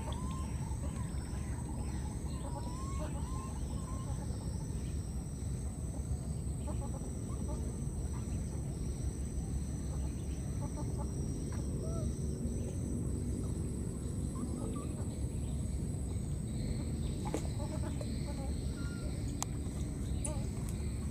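Outdoor ambience with scattered animal calls, a steady high-pitched whine and a run of rapid high chirps in the first half.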